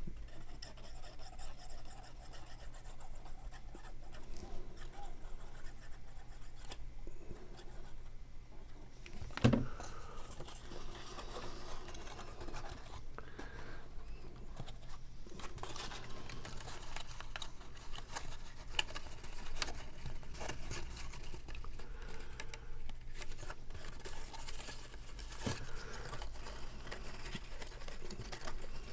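Cardstock pieces being handled, rubbed and pressed into place, with scattered light rustles and taps, a sharper knock about nine seconds in and another near the end.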